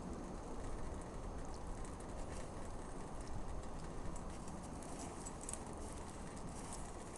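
Faint, scattered crunching of a Newfoundland dog's paws and a man's feet moving in snow, over a steady low background noise.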